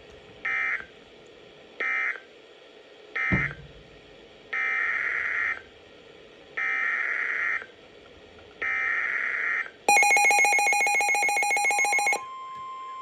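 EAS (SAME) data bursts: three short warbling end-of-message bursts about a second and a half apart, then three longer header bursts about two seconds apart announcing the next alert. About ten seconds in, a loud pulsing electronic alert tone sounds for about two seconds, then drops to a quieter steady tone.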